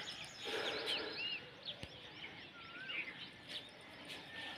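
Small birds chirping, many short, quick calls, over faint outdoor background noise.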